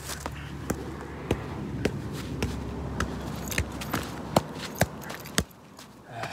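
A size-4 football being juggled, knocking off shoe and thigh about every half second, around ten touches. The touches stop near the end when the ball gets away. A low steady rumble runs underneath.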